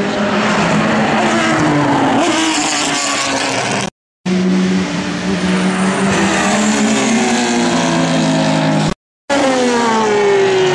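Endurance race cars, among them a Porsche 911 GT3 RSR, passing at speed, each engine note falling in pitch as it goes by. The sound cuts out abruptly twice, about four and nine seconds in, between passes.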